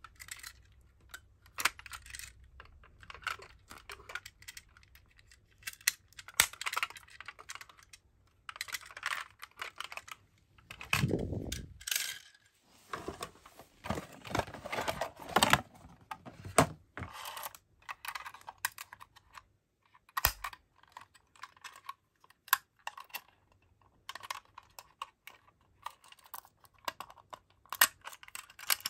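Toy ambulances, small die-cast and plastic models, being handled: irregular small clicks and clatters of plastic and metal parts knocking together. A louder bump and rustle comes about eleven seconds in, with a busier run of clatter just after.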